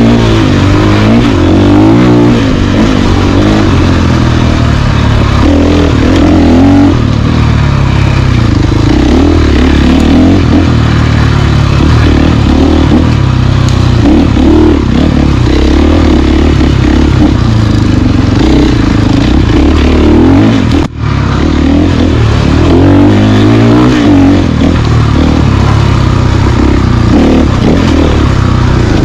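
Dual-sport motorcycle engine running under way, its revs rising and falling as the rider works the throttle. The sound cuts out for a moment about two-thirds of the way through.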